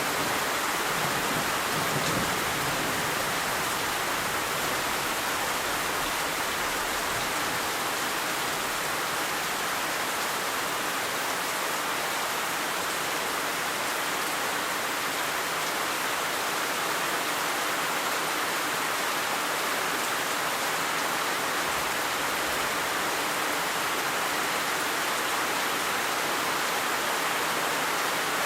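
Steady heavy rain, an even unbroken hiss of pouring drops, with a faint low rumble of thunder dying away in the first few seconds.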